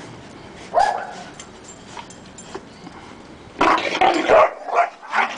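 Two Dogo Argentinos breaking into a fight: a short whine about a second in, then loud growling and barking from a little past halfway.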